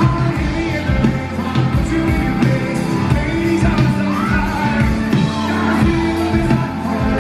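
Live rock band playing: a male lead singer sings over bass guitar and drums.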